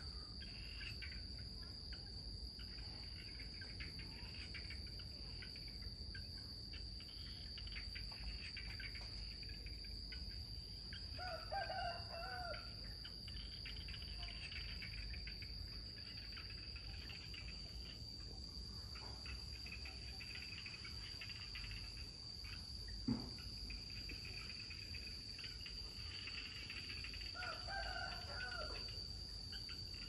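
Insects keep up a steady high trill while a rooster crows twice, once about a third of the way in and again near the end. A single sharp knock sounds about three quarters of the way through.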